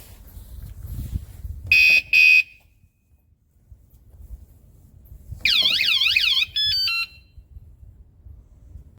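Fosmon motion-sensor bike alarm giving two short high beeps, then about a second of warbling siren followed by a quick run of stepped electronic chirps.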